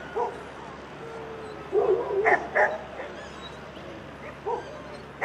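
Dogs barking and yipping in short sharp bursts: a single bark at the start, a quick run of about four barks around two seconds in, and another bark near the end.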